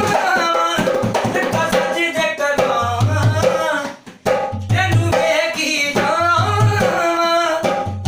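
A newly made dholak is played by hand in a lively qawwali-style rhythm to check its tone, its deep bass strokes under a male voice singing. Both break off for a moment about halfway through, then start again.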